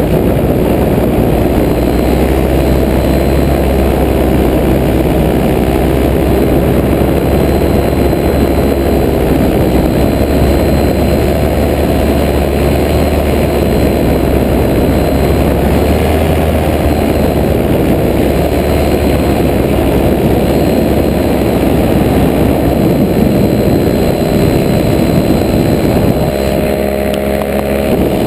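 Paramotor engine and propeller running steadily at cruise, heard from the pilot's harness, its note wavering slightly and shifting a little near the end.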